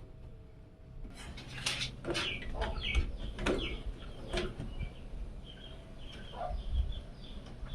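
Bird calls in the background: a string of short calls that begins about a second in and recurs through the rest.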